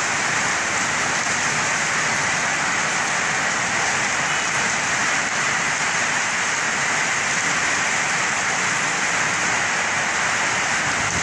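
Heavy tropical storm rain: a steady downpour falling on the street and pavement, an even, unbroken rush of noise.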